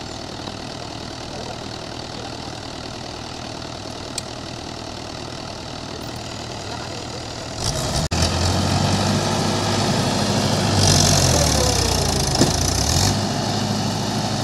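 Mahindra tractor's diesel engine idling, then revving up hard about eight seconds in as it strains to pull a loaded trolley through deep mud, its engine speed rising and falling. A high hiss joins in for a couple of seconds near the end.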